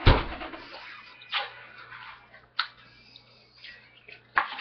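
Kitchen handling noises at a countertop: one heavy knock at the start, then three lighter, sharp knocks and clicks spread over the next few seconds.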